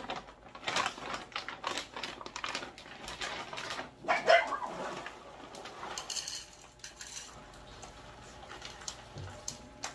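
Dry dog kibble clicking and rattling as it is scooped from a large plastic food bag into a bowl, with the bag rustling. A dog yips once, loudly, a little after four seconds in.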